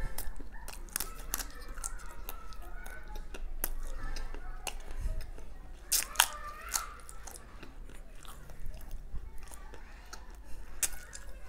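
Close-miked chewing and mouth sounds of a person eating chocolate cake off a fork: irregular wet clicks and smacks of lips and tongue, with a sharper click about six seconds in as the fork goes into the mouth.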